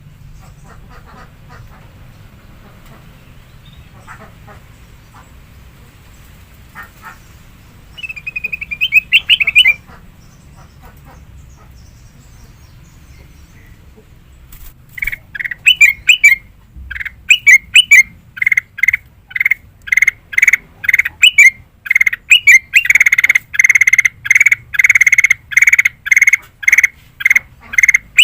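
Kutilang emas (a bulbul) singing: a short chirping burst about eight seconds in, then from about halfway a long run of loud, sharp notes repeated several times a second, coming faster near the end.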